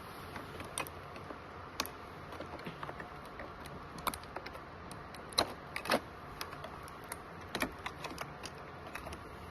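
Irregular light clicks and taps of small hand work on a plastic ultrasound control panel, scattered unevenly with two sharper clicks around the middle.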